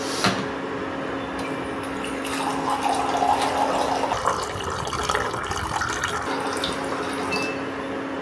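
Water running from a countertop hot water dispenser into a ceramic mug for about four seconds, starting about two seconds in; the splashing rises in pitch as the mug fills. A click comes just after the start.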